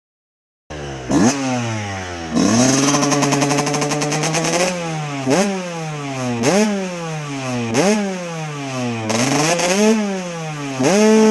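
Freshly rebuilt Husqvarna WR 125 single-cylinder two-stroke engine running and being blipped on the throttle. The revs are held high for about two seconds, then jump up and fall back about once every second and a bit.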